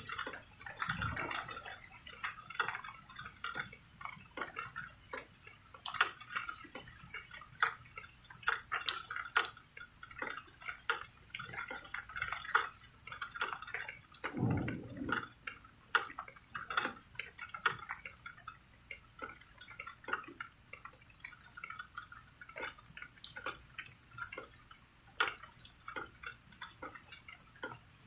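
Rain dripping and pattering in irregular drops, with a brief low rumble about halfway through.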